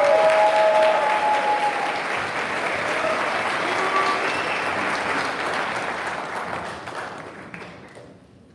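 Audience applauding, with a few cheering voices in the first couple of seconds. The clapping tapers off in the last couple of seconds.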